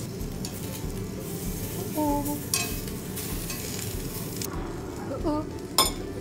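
Slices of beef sizzling on a tabletop yakiniku grill, a steady frying hiss. Two sharp clicks cut through it, the louder one near the end.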